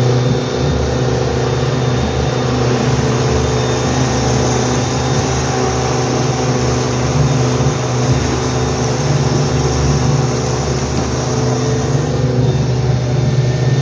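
Outboard motor running steadily at cruising speed, pushing an aluminium boat heavily loaded with fish, with a steady rush of water and wind over it.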